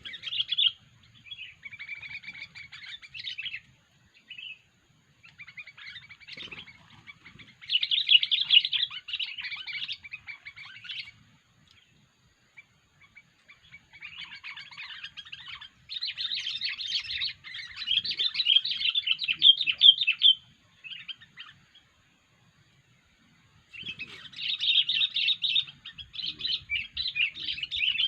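Sooty-headed bulbul (kutilang) singing in rapid chattering phrases, in bursts of a few seconds separated by short pauses.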